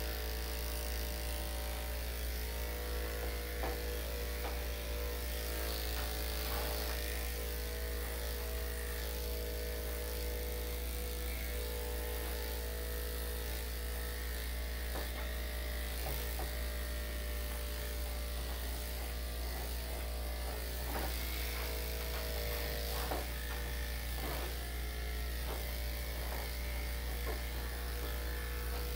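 Electric dog grooming clippers with a #5 blade running with a steady buzz as they are passed back over the dog's coat for a second, cleaner cut.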